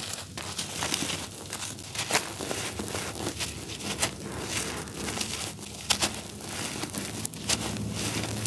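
Hands crumbling dry, grainy charcoal cakes: an irregular run of crisp crunching and crackling as the lumps break apart and grit and powder trickle down onto the heap, with sharp crackles scattered throughout.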